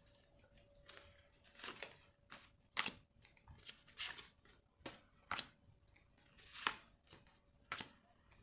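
A tarot deck being shuffled by hand: a string of short, irregular swishes and taps from the cards.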